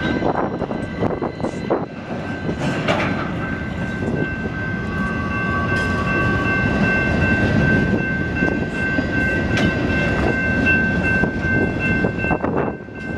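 Freight train cars rolling past, a dense steady rolling noise with scattered clicks and knocks from the wheels. A steady high-pitched squeal rides over it from about four seconds in until about twelve seconds.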